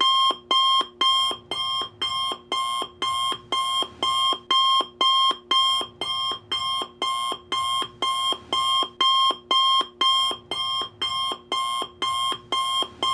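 Alarm clock ringing in rapid, evenly repeated rings, about two to three a second, starting suddenly out of silence: the timer has counted down to zero and time is up.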